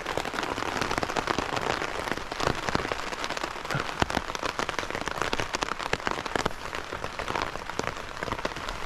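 Heavy rain pattering on a tarp overhead: a dense, steady hiss of rain filled with sharp individual drop hits.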